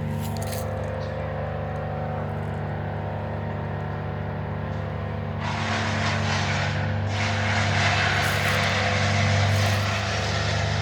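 A loud, steady low mechanical hum made of several held tones, with a rushing hiss that comes in about halfway and grows toward the end; its source is unidentified.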